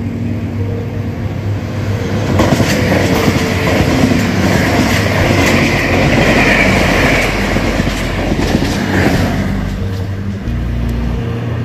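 Diesel-hauled Taiwan Railways Tze-Chiang express train passing close by at speed. A rising rush of coaches goes by with continuous clickety-clack of wheels over rail joints, loudest in the middle and easing off toward the end.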